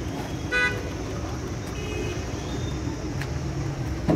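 A vehicle horn gives one short toot about half a second in, over a steady low rumble of engines and traffic.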